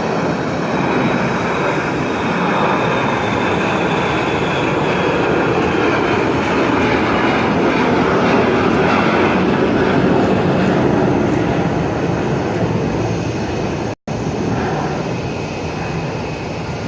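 Jet airliner's engines running loud as it passes, a steady rushing noise with a high whine that falls slightly in pitch. The sound cuts out for an instant about fourteen seconds in, then goes on.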